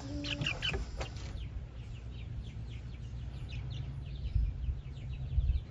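Young chickens peeping: many short, high, falling cheeps, over a steady low rumble.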